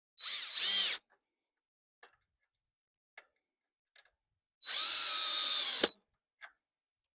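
Power drill driving a screw in two short runs, the second longer and ending with a sharp click, with a few light taps between them.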